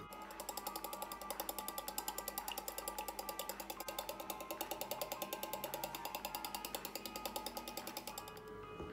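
Wire balloon whisk beating a thin liquid in a small bowl, its wires clicking against the bowl in a fast, even rhythm of about eight strokes a second; the whisking stops near the end. Background music plays underneath.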